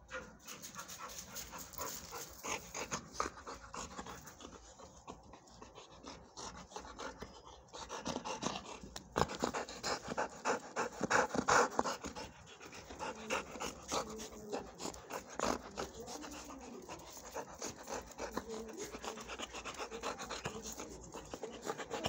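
Dog panting quickly and steadily close by, louder from about eight seconds in.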